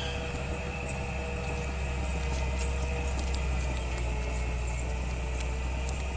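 Komatsu D31P crawler bulldozer's diesel engine running steadily with a deep low rumble, with scattered light clicks over it.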